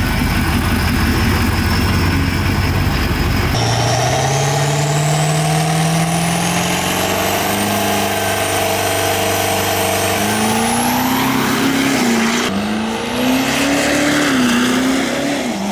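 Diesel drag-racing pickup's engine running hard, its pitch climbing slowly, with a high turbo whistle rising steadily over it. About two-thirds of the way in the sound changes abruptly and a second rising whistle starts.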